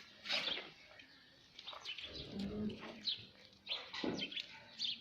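Birds chirping in short, quick calls again and again, with a low, held call about two and a half seconds in.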